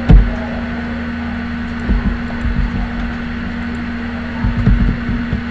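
Steady low hum and hiss of background room noise, with a few soft low thumps about two seconds in and again near the end.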